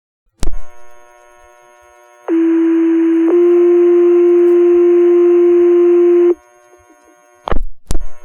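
Fire dispatch radio sending a two-tone sequential page: a click as the transmitter keys up, a short hiss, then a steady tone for about a second that steps slightly higher and holds about three seconds before cutting off. These are the alert tones that set off the volunteer firefighters' pagers. Two more clicks from the radio keying come near the end.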